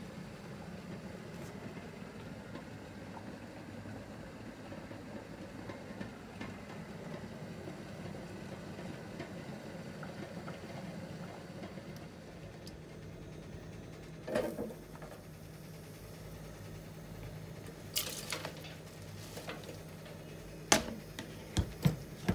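Kitchen room tone: a steady low hum under a faint hiss. A few sharp knocks and clatters come in the second half, the loudest two near the end.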